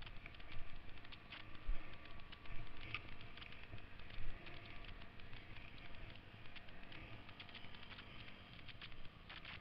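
Irregular clicking and rattling, heard close to the camera, over a faint low engine hum from a slowly ridden 1974 Honda XL 350 trail bike on a muddy track.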